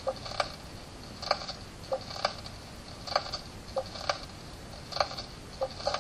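Mechanical ticking sound effect: sharp clicks in an even rhythm, mostly in pairs about once a second, like clockwork.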